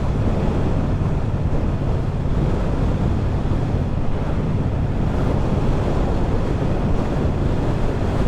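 Steady wind rush over the microphone, with a Triumph Bobber's 1200 cc parallel-twin engine running evenly underneath at a steady cruising speed.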